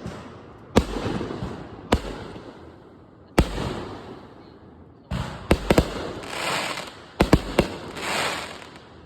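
A series of sharp bangs, each with an echoing tail, about one a second, then two quick volleys of several bangs, each followed by a swell of crackling.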